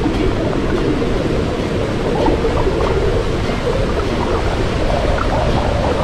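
Muffled, steady rushing and bubbling of fast-flowing stream water, heard from a camera held under the surface.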